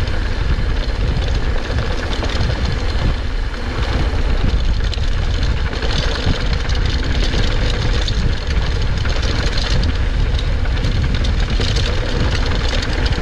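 Wind buffeting the camera microphone as a mountain bike descends fast, with tyres rolling over a dry, rutted dirt trail; a loud, steady rumble with the bike's small rattles over bumps.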